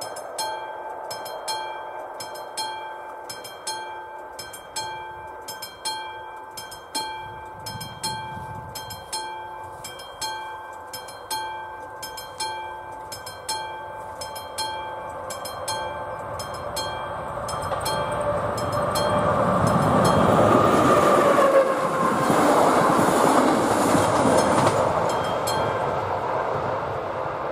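Level-crossing warning bell at AŽD 71 signals ringing in even, repeated strokes while a passenger train approaches and passes, growing loud over the last third. A sustained tone dips in pitch as the train goes by. The bell falls silent near the end as the crossing clears.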